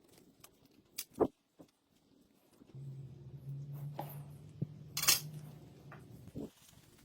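Two sharp clicks of small hard parts being handled, then a small electric motor running steadily for about four seconds, with a metallic clink partway through.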